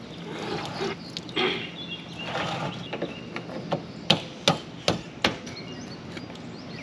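Handling noise from RV hookup gear being disconnected: soft rustling, then four sharp clacks in quick succession, about 0.4 s apart, around the middle.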